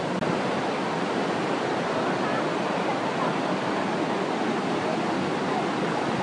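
Waterfall and rushing river rapids: a steady, even rush of water, with a momentary dropout just after the start.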